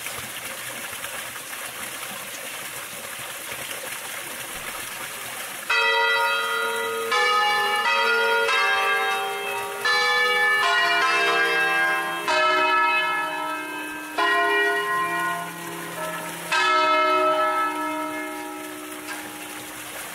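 The swinging church bells of a five-bell peal in E-flat ring out one after another at different pitches, as in a traditional ringing scale. The strikes begin about six seconds in, come roughly once a second with some overlapping, and die away near the end.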